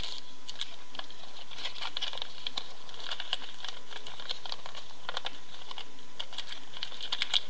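A sheet of paper being folded and creased by hand: a run of quick, light crackles and rustles.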